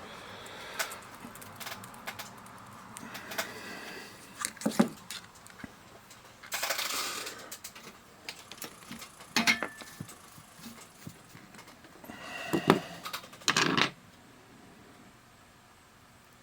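Small tools and parts being handled on a workbench: scattered clicks, taps and light clatters, with a short rustle about seven seconds in.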